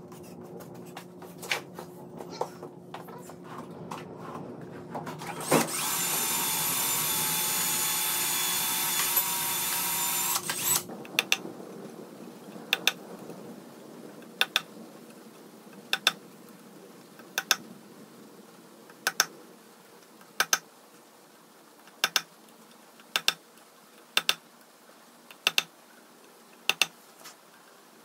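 Cordless drill running in a drill guide, boring a mounting hole into the epoxy granite lathe bed: a steady high-pitched whine for about five seconds that stops abruptly. Before it come light knocks as the guide is set up. After it comes a run of sharp clicks, roughly one every second or so.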